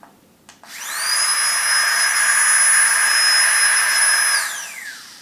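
Flextail Gear Tiny Pump, a small battery-powered air pump for sleeping pads, switched on with a click: its fan motor spins up to a loud, high steady whine with a rush of air, runs about three seconds, then winds down with a falling whine near the end.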